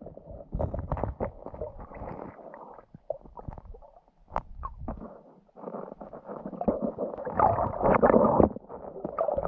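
Muffled underwater water noise picked up by a submerged camera as a skin diver moves: irregular rumbling and gurgling with scattered knocks, dropping off for a moment a few seconds in and growing louder near the end.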